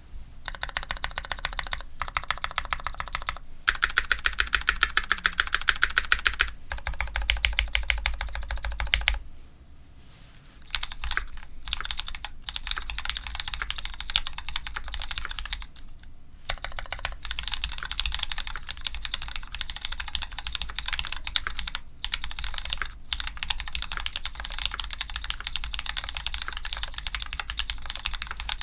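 Custom mechanical keyboard (Dolphin linger re, aluminium plate) with lubed Cherry Retooled Black linear switches and GMK keycaps being typed on quickly, a dense clatter of keystrokes. Some stretches are fast, evenly spaced strokes, and there is a pause of about a second and a half about a third of the way in.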